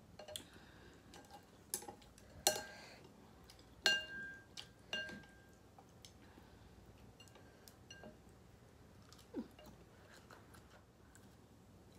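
Utensils clinking against a soup bowl while eating pho, with scattered light ticks and three louder clinks, the middle one ringing briefly.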